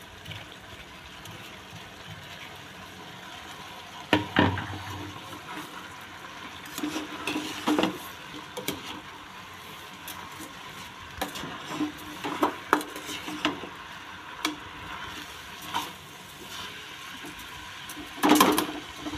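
Rice being stirred into frying vegetables in a pan with a metal slotted spoon: the spoon scrapes and knocks against the pan over a steady low sizzle. The loudest knocks come about four seconds in and near the end.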